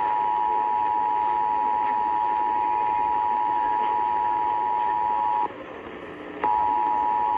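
Emergency Alert System attention signal, the steady two-tone alert (853 and 960 Hz sounding together), received over AM radio with static hiss underneath. The tone drops out for about a second partway through, then resumes near the end.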